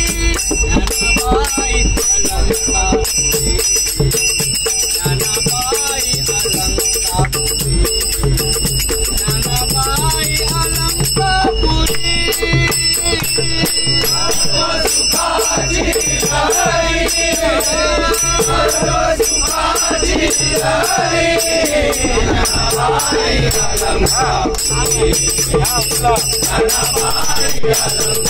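Marathi abhang bhajan sung by a lead singer and a group of men, kept in time by small brass hand cymbals (taal) ringing and jingling. The low rumble of the moving train sits under the first half.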